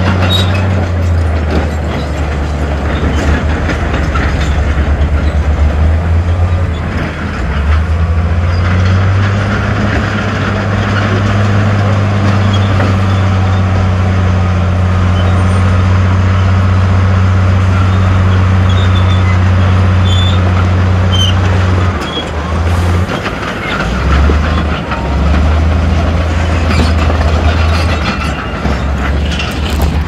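Heavy diesel engine of earthmoving machinery running steadily under load, a deep, even hum with occasional light metallic clanks. About 22 seconds in the engine note drops and then wavers on and off.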